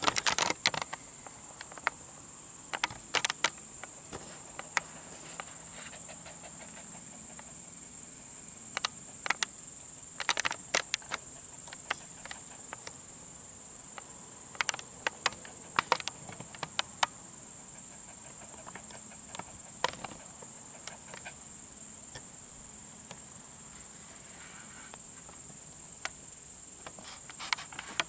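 Crickets chirping in a steady high-pitched drone. Scattered sharp clicks and taps come at irregular moments, bunched in a few short clusters.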